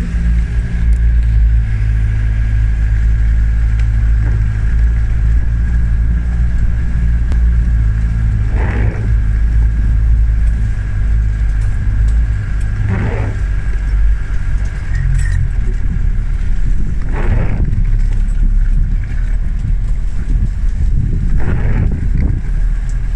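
Land Rover Defender 110 driving slowly, heard from inside the cab: a steady low engine drone with a thin steady whine above it. A brief swish of the windscreen wiper comes about every four seconds.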